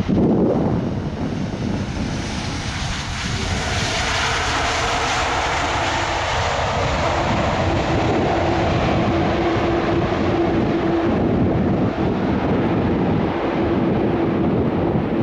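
Boeing 747-400's four turbofan engines during the landing rollout after touchdown. The jet roar grows louder and brighter about four seconds in, and a steady hum joins it in the second half.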